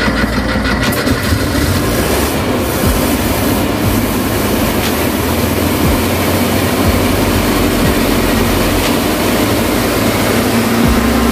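Air-cooled flat-four engine of a VW T2 bay-window Kombi running steadily, heard close up at the open engine bay.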